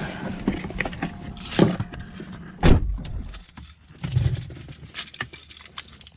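Car keys jangling and clicking, with a heavy thump about two and a half seconds in and a softer one about a second later.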